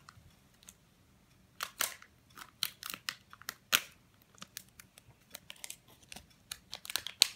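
Plastic candy packet crinkling and tearing as it is worked open by hand: a run of sharp, irregular crackles.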